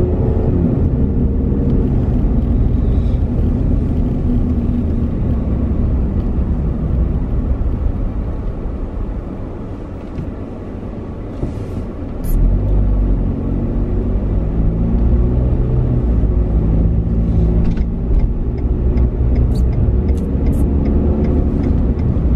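Car engine and tyre rumble heard from inside the cabin while driving. It eases off and quietens about a third of the way through, then grows louder again about halfway through as the car pulls away. A few light ticks come near the end.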